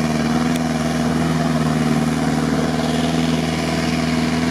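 Off-road SUV's engine running at steady revs as it crawls through a muddy stream, its note holding level without rising or falling.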